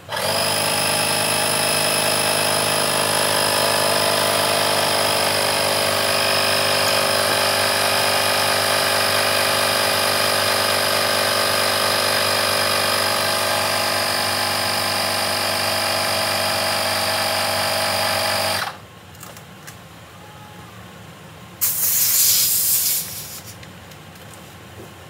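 Portable car-plug electric tyre inflator running with a steady mechanical hum for about eighteen seconds, then stopping abruptly. A few seconds later comes a short, loud hiss of air as the hose's clip-on chuck is released from the tyre valve.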